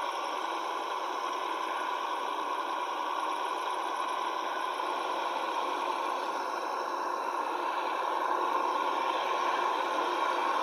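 Radio-controlled scale truck running: a steady, thin mechanical whir with some rattle, slightly louder near the end.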